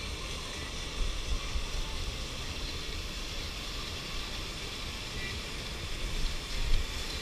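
Steady low rumble with a faint hiss above it, the kind of background noise heard aboard a ship, with a brief louder bump about a second in and another near the end.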